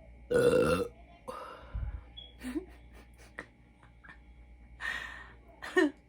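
A woman burping repeatedly after gulping soda: a loud burp about half a second in, a weaker one right after it, and two shorter burps near the end.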